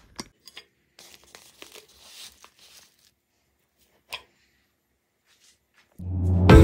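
Packaging rustling and crinkling as it is handled, with a few light knocks, then loud music starts near the end.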